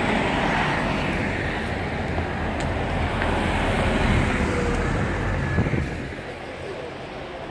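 Double-decker buses driving past: engine and tyre rumble, which falls off about six seconds in as the second bus moves away.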